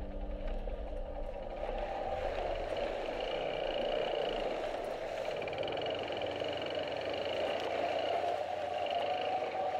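Yamaha XT250 Serow's air-cooled single-cylinder engine running at low speed as the bike rides through a shallow river crossing. From about two seconds in, the rushing splash of the front wheel through the water joins it.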